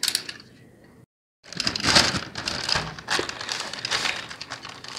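Plastic courier mailer bag crinkling and rustling as hands press and handle it. The first second is quiet, with a brief gap of dead silence before the crinkling starts.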